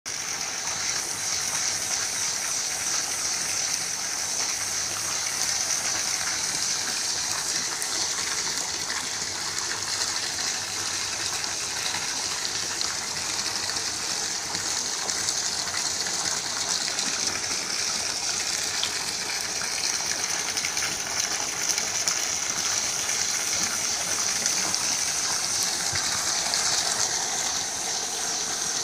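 Pool waterfall fountain on an Intex pool, water pouring steadily and splashing into the pool.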